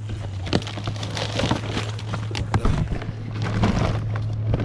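Knocks and rustling from something being lifted and handled, over a steady low hum.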